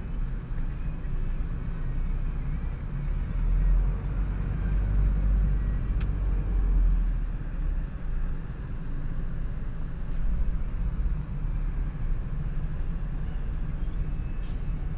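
Steady low rumble of a vehicle's engine and road noise heard from inside the vehicle, with a single sharp click about six seconds in.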